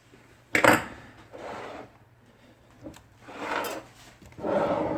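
IBM Selectric II typewriter mechanism being worked by hand during a return-cable and tab-cable replacement: a sharp clack about half a second in, then several shorter rattling, scraping sounds.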